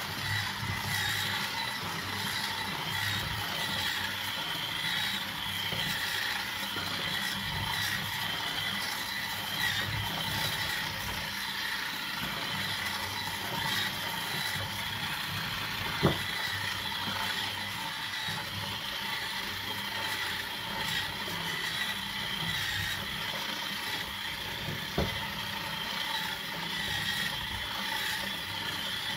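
Electric hand mixer running steadily with its dough hooks, kneading chunks of cold butter into flour for a butter-cookie dough. The motor whirs at an even pitch, with a single sharp knock about halfway through.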